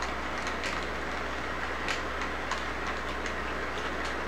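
Model intermodal train rolling past, a steady rumble with the wheels clicking irregularly over the track, about two or three clicks a second, over a constant low hum.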